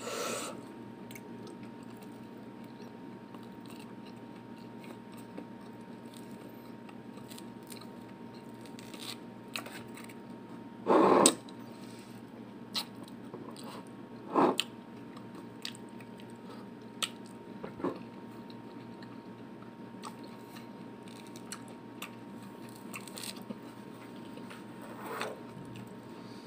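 Close-up eating: a person biting and chewing pieces of fruit, with scattered small clicks and two louder short crunches or knocks near the middle, over a steady room hum.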